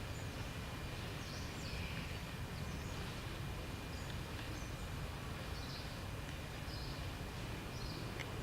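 Steady low outdoor rumble with short high-pitched animal chirps scattered through it, a few each second or two.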